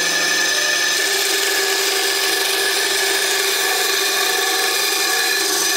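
ATIKA BS 205 bandsaw, with its 370-watt motor driving the blade wheel directly, running steadily while the blade cuts through a sheet of plywood fed by hand.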